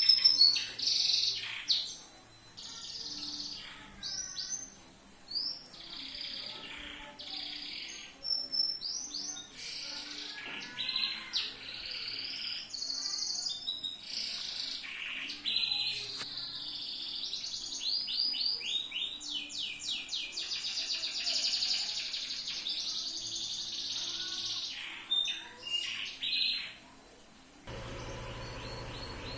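Yellow domestic canary singing a long, nonstop song of rapid trills and rolls. The song breaks off near the end and a steady low hum takes over.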